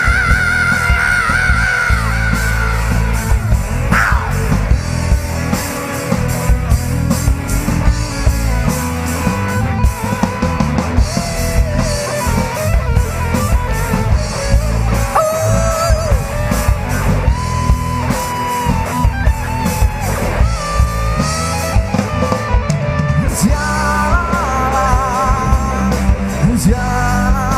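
Rock band playing an instrumental passage between sung lines: a lead guitar melody over bass and drums.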